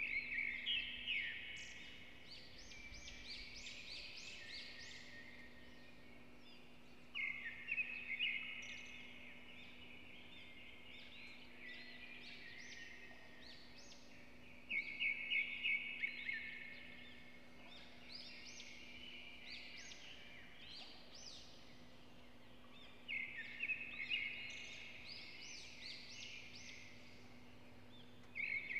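A bird singing a short, busy phrase of chirps and rising notes, repeated four times about seven to eight seconds apart, over a steady low hum.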